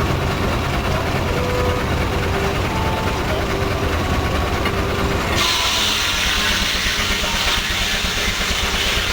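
Heavy engine running with a low, steady rumble; about five seconds in, a loud steady hiss starts suddenly and carries on over it.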